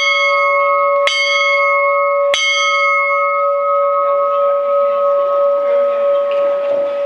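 A large bell struck three times about a second and a quarter apart, the first stroke right at the start, its ringing tone then held and slowly dying away.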